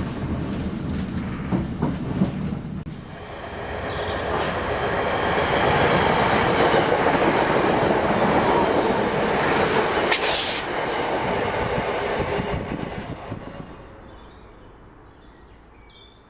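Rumble of a moving train, then a passenger train rushing past close by, building up and fading away, with a short high-pitched burst about ten seconds in. Faint bird chirps follow as it fades.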